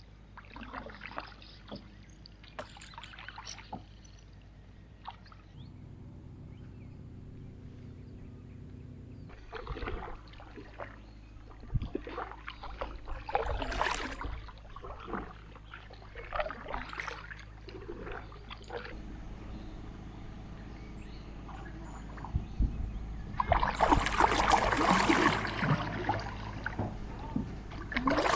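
Canoe paddle strokes: the blade dipping and sloshing in calm lake water, with drips and small splashes. A steady low hum runs for a few seconds early on, and about three-quarters through there is a louder rush of splashing lasting about two seconds.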